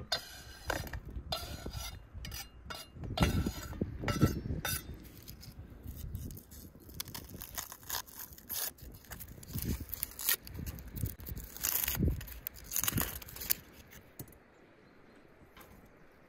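A large knife scraping chopped beef heart off a wooden cutting board into an enamel plate, with clinks of the blade on board and plate. Then a small knife peels the dry skin off an onion in short scrapes and clicks. The sounds die down near the end.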